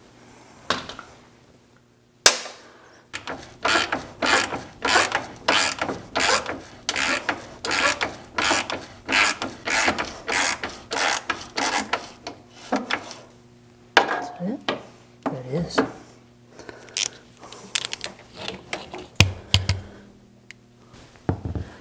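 Hand socket ratchet clicking as a bolt is turned: a sharp click about two seconds in, then a steady run of back-and-forth ratcheting strokes about two a second, thinning to slower, scattered strokes in the second half.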